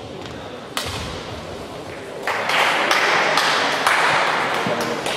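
A single sharp knock from badminton play about a second in, then spectators applauding loudly from about two seconds in as the rally ends.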